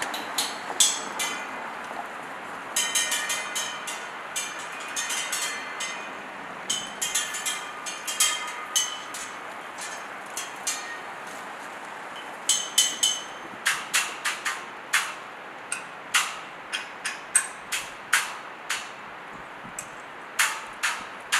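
Irregular sharp clicks and light ringing taps over a steady low hiss. They come in small clusters in the first third, thin out in the middle, then come about twice a second from around halfway on.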